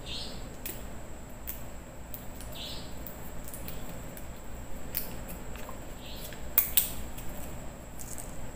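Small plastic bottle of rat poison handled and turned over in the hand, giving scattered light clicks and a few short swishes. The loudest are two quick clicks about two-thirds of the way through.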